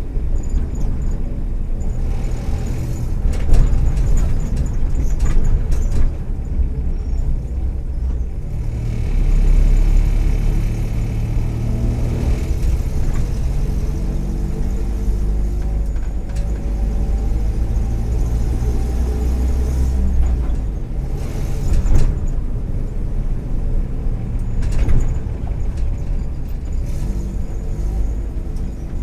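Volkswagen EA111 1.4-litre four-cylinder engine of a 2009 Kombi running under way, its tone climbing steadily through the middle and dropping about 20 seconds in. Sharp knocks and rattles come here and there, the loudest about 3.5 seconds in; the owner puts such noises down to loose trim and a probably cracked exhaust manifold. The worn spark plug leads and ignition coil, by the owner's account, make it misfire now and then.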